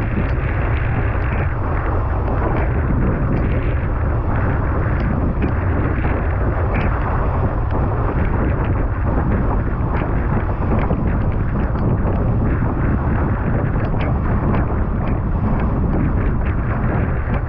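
Steady wind buffeting an action camera's microphone while a windsurf board sails fast across choppy water, with water rushing and spray hissing under the board and short slaps from the chop.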